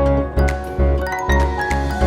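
Background music with a steady beat: deep drum thumps about twice a second under short, bright pitched notes.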